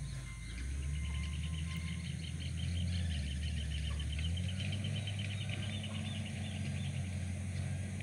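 A bird's fast run of high chirps, about eight a second, lasting several seconds, over a steady low rumble.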